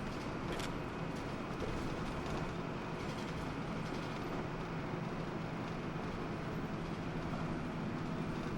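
Steady interior running noise of a Hino Blue Ribbon II city bus: engine and cabin rumble with a faint constant hum and a few light rattling clicks.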